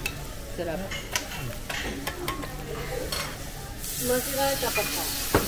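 Food sizzling on a tabletop teppan griddle, with light clicks of utensils; the sizzle turns suddenly louder about four seconds in.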